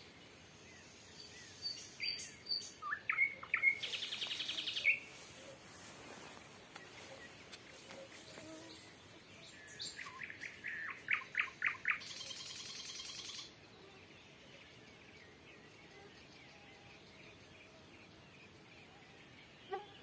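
Nightingale song: two phrases of whistled notes and fast runs of repeated notes, each ending in a dry rattling trill. The second phrase stops about two-thirds of the way through, leaving only faint evening background.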